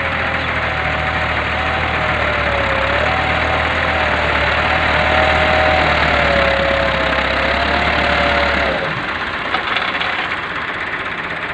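Massey Ferguson 265 tractor's three-cylinder diesel engine running, with a whine that wavers in pitch as it works; about nine seconds in the deep engine note drops away and the sound becomes quieter.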